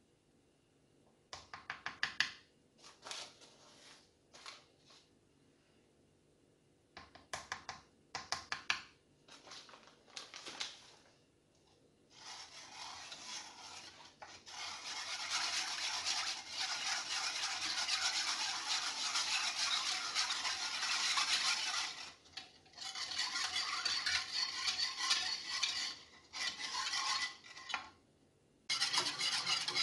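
Stainless balloon whisk beating corn flour into a milky liquid in a nonstick saucepan: fast, continuous swishing and scraping of the wires against the pan, starting about halfway in and pausing briefly twice. Before that, a few short bursts of quick clinking and tapping as the flour is spooned in and the whisk is handled.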